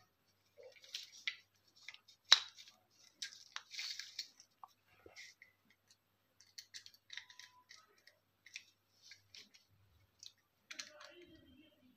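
Soft, scattered clicks and scrapes of a wire and a small screwdriver being worked at the screw terminals of a plastic two-way light switch, with one sharper click a little over two seconds in.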